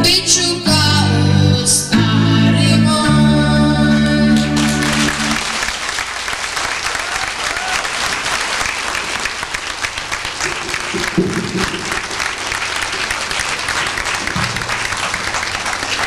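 A boy's pop song with band backing ends on its last sung phrases and held chords about four to five seconds in, followed by a theatre audience applauding.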